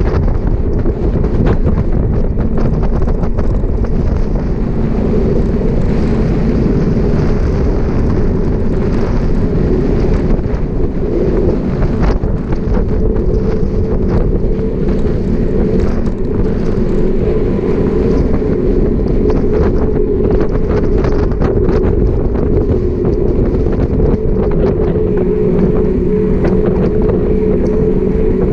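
Loud, steady wind buffeting the microphone of a camera riding on a moving bicycle, over a low rumble with a faint steady hum, the sound of the bike rolling on asphalt.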